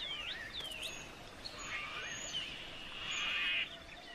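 Birds calling: a few repeated swooping whistled notes, then, about a second and a half in, a dense buzzy chattering trill that grows loudest and cuts off sharply near the end.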